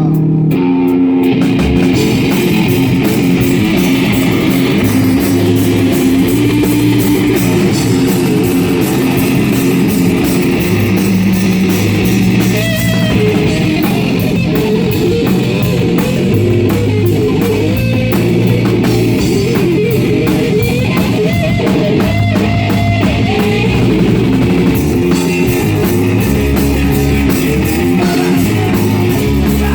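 Rock band playing live: electric guitar over a drum kit, loud and continuous.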